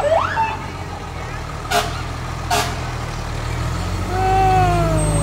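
Fire department ladder truck's diesel engine running as it turns past, growing louder near the end. There are two short, sharp bursts of noise about two seconds in, and in the last second a siren winds down, its pitch falling.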